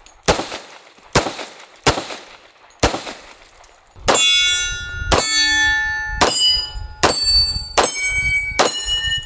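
.45 ACP 1911 pistol firing: four single shots about a second apart, then six more shots at a slightly quicker pace, each followed by the ringing clang of a struck steel target.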